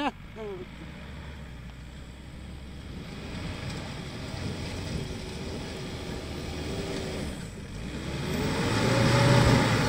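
Isuzu D-Max pickup's engine pulling under load up a steep loose-rock climb, running steadily and then revving higher and growing louder about eight seconds in as the truck comes closer.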